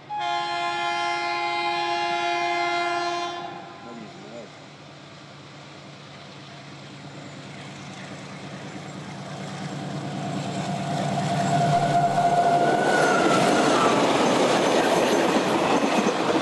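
Freight locomotive horn sounding one long blast of several notes together, ending about three seconds in. Then a KiwiRail freight train led by DXR-class diesel-electric locomotives approaches and passes close, its engine and wheel noise growing steadily and staying loud as the wagons go by.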